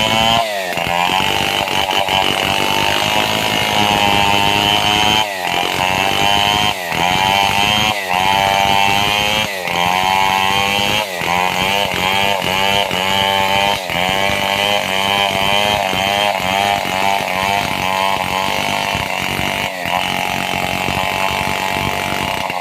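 Two-stroke chainsaw running at high speed while cutting lengthwise through a log. Its pitch sags and recovers every second or two as the chain loads up in the wood.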